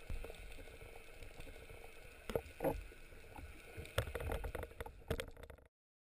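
Faint underwater ambience picked up by a camera in its housing: a muffled wash of water with scattered clicks and a few louder knocks about two and a half and four seconds in. It cuts out shortly before the end.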